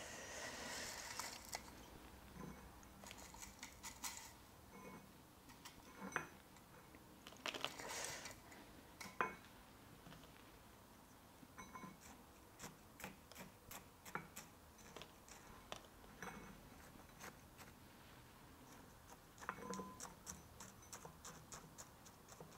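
Granular bonsai soil mix of akadama, fine sand and decomposed granite being poured from a scoop into a small ceramic pot with a faint rustling, then poked down among the roots with a bamboo chopstick, giving scattered small gritty clicks and ticks.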